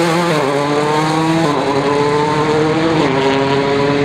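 Rally car engine accelerating hard through the gears. Its pitch climbs, then drops sharply at an upshift about one and a half seconds in and again about three seconds in.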